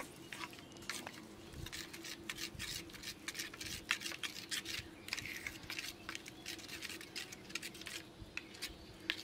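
Steel spoon stirring and scraping through grated mango and sugar in a stainless steel bowl, with irregular clicks of the spoon against the metal bowl.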